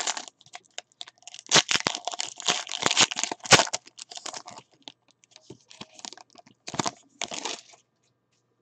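The wrapper of a 2017 Certified Cuts trading-card pack being torn open and crinkled in the hands: a dense spell of crackling from about a second in to halfway, then scattered shorter crinkles, with two short bursts near the end.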